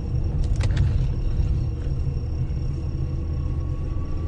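Steady low rumble of a car driving on a snowy highway, heard inside the cabin through a dashcam, with a few short clicks about half a second in.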